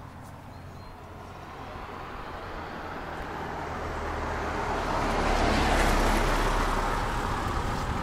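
A car passing by on the road. Its tyre and engine noise swells to a peak about six seconds in, then starts to fade.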